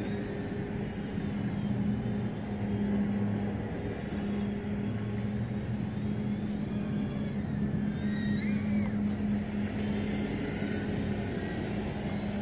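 Small FPV racing quadcopter in flight: a steady low hum runs throughout, with faint higher motor tones rising and falling, most clearly about eight seconds in.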